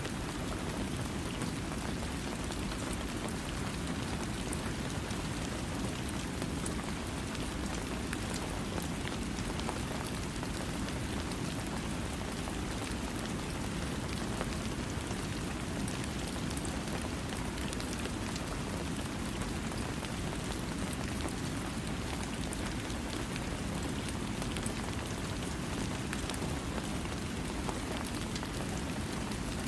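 Steady rain falling and pattering on surfaces, an even, continuous hiss with a deep low rumble and fine scattered drop ticks, with no thunder.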